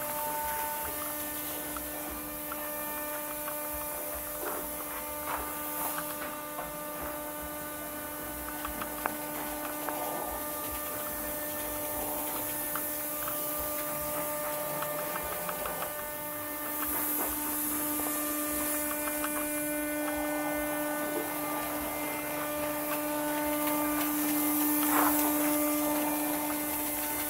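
Steady motor hum with evenly spaced overtones, and a high hiss of air over it that swells about halfway through, as water-based textured paint is sprayed from a hopper spray gun. Small scattered clicks come through now and then.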